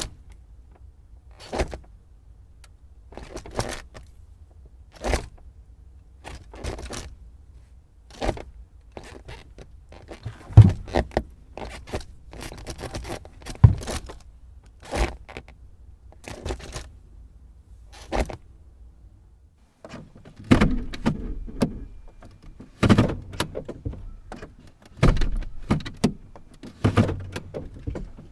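Car gear lever being shifted again and again: a series of short mechanical clunks and clicks, about one every second or two, over a faint low rumble.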